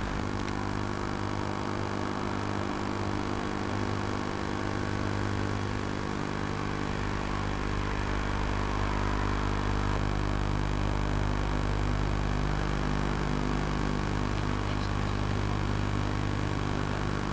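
Diesel engines of hydraulic crawler excavators running steadily, a low even hum that grows a little louder about halfway through.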